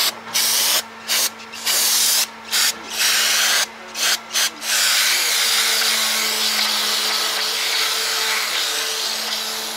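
Aerosol can of brake parts cleaner spraying: several short squirts over the first five seconds, then one long continuous spray.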